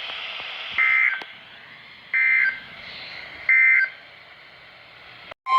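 Emergency Alert System end-of-message over NOAA Weather Radio: three short bursts of warbling SAME digital data tones about a second and a half apart, with faint radio hiss between, marking the end of the flash flood warning.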